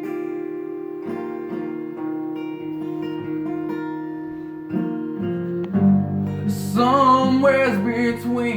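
Acoustic guitar playing a picked melody over a held low note, growing fuller from about five seconds in; a voice starts singing near the end.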